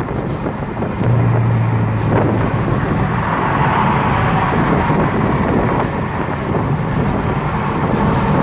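Steady road traffic noise of passing vehicles, with wind on the microphone.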